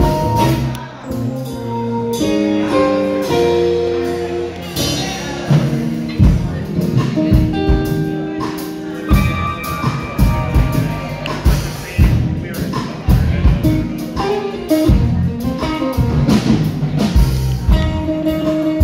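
A band playing live: drum-kit hits over guitar and held melodic notes.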